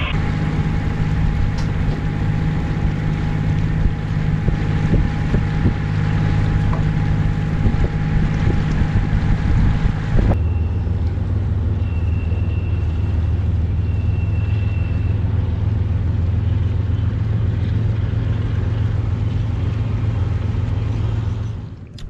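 Sailboat's inboard diesel engine running steadily under way, a low even drone. Its tone shifts abruptly about ten seconds in.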